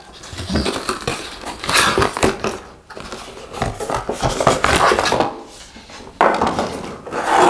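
Cardboard and plastic model packaging being handled: a sleeve slid off a plastic display case, with irregular rustling, scraping and small clicks and knocks.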